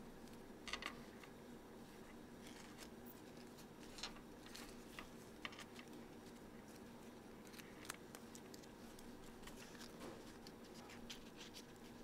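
Faint crinkling and rustling of a small sheet of origami paper being folded and creased by hand on a tabletop, in scattered soft crackles and ticks over a steady low room hum.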